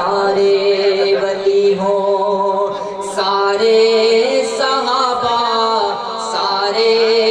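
A man's solo voice singing a devotional naat into a microphone, drawing out long, wavering held notes.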